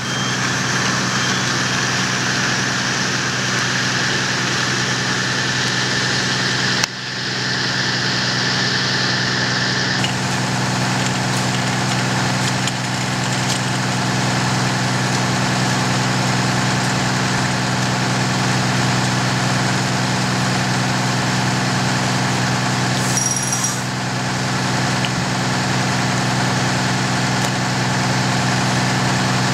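Fire truck's diesel engine idling steadily, a constant low hum with an even rumble.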